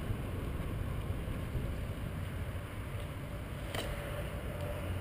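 Wind rumbling on the microphone of a bicycle-mounted camera as it rides along a paved trail, a steady low rumble with tyre noise under it, and a single sharp click a little before four seconds in.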